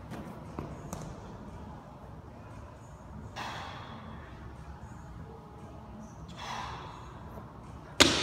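Two heavy, forceful breaths about three seconds apart from a man working strict handstand push-ups against a wall. Near the end comes a loud, sharp thud with a long fading ring as he drops out of the handstand and his feet hit the rubber gym floor.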